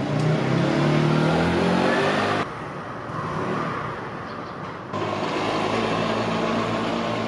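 Street ambience with a motor vehicle engine running, its pitch rising gently over the first couple of seconds. The sound changes abruptly twice, about two and a half and five seconds in.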